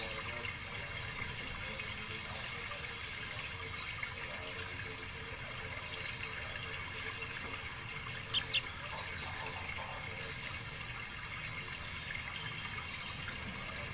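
Caged songbird giving two short high chirps in quick succession about eight seconds in, over a steady background hiss.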